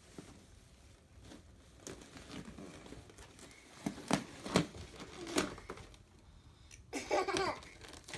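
Scattered rustles and light knocks from rubber balloons being handled, with a toddler's short babble near the end.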